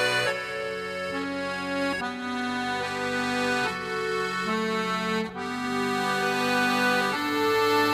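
Instrumental background music: a melody of held notes over sustained chords, changing note about every half second to a second.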